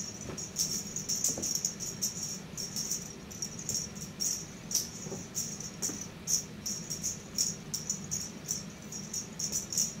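Angry Birds pet toy giving short, high-pitched bursts of sound, several a second at an uneven pace, as a pet chews and worries it.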